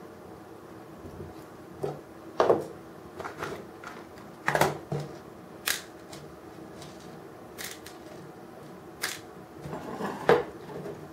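Light, irregular clicks and taps of small diecast metal and plastic model parts and tools being handled on a work surface, about a dozen in all, with no steady motor sound.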